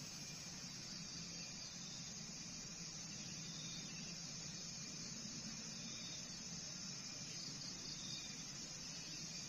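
Steady high-pitched chorus of insects, with a low steady hum underneath.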